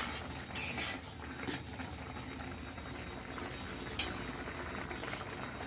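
Jute-leaf soup boiling in a kadai over a gas burner, a steady bubbling hiss. There is a brief scrape near the start and a sharp click about four seconds in.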